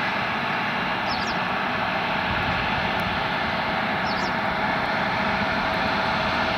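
Jet airliner engines running steadily: a constant rush of noise with a faint whine held at one pitch.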